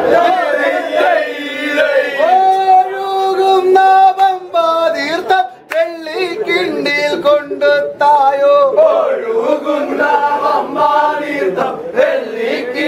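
A group of men singing a Malayalam song together in a loud chanting style, one voice leading, with long held notes and gliding phrases. The song is a vanchipattu (boat song) of the kind sung at a Vallasadya feast.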